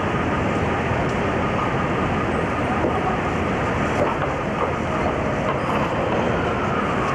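Steady city street din: traffic and pedestrian crowd noise blended together, with a faint falling whine near the end.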